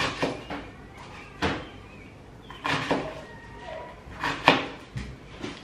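Kitchen knife chopping red onion on a plastic cutting board: sharp knocks at uneven intervals, several in quick pairs.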